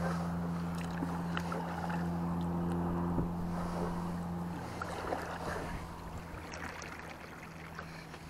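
Kayak paddling on a lake: small paddle splashes and drips over lapping water. Under it runs a steady low hum that weakens about halfway through.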